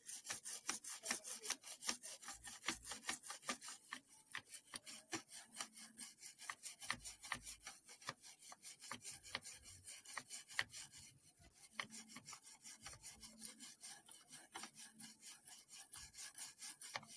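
Toothbrush bristles scrubbing a circuit board wet with methylated spirit, in quick, quiet back-and-forth strokes about four a second, clearing green corrosion from component pins.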